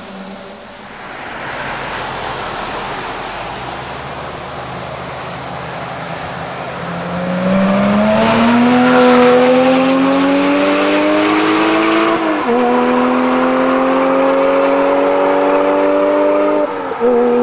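2007 Porsche Cayman S flat-six with an AWE Tuning stainless catback exhaust, accelerating hard as the car approaches and passes. The exhaust note climbs steadily in pitch and drops sharply twice at upshifts, once about midway and once near the end.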